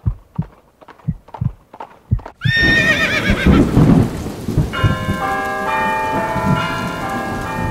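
Intro sound effect: a horse's hooves clopping at about three beats a second, then a loud wavering horse whinny about two and a half seconds in, followed from about five seconds in by steady overlapping chiming bell tones.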